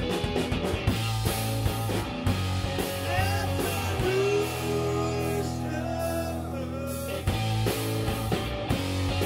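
Live punk rock band playing electric guitar, bass and drums. In the middle the beat stops for about three seconds under a held chord with sliding notes, then the full band comes back in.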